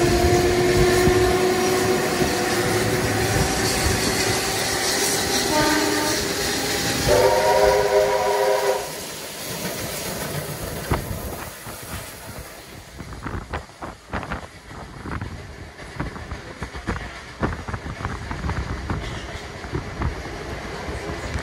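Passing train sounding a multi-tone chord whistle: a long held chord, a short toot, then a second blast of about two seconds. After that the wheels click over rail joints as the train runs by.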